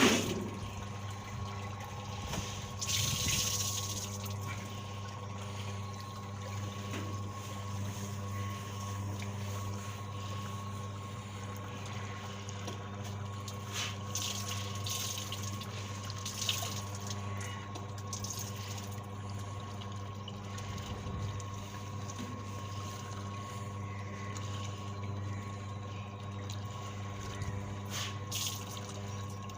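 Washing machine's electric motor humming steadily while water trickles, with a few light knocks.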